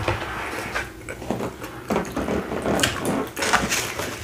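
Mouth sounds of eating: irregular smacks and clicks of chewing, with breath puffed out through pursed lips against the burn of spicy noodles.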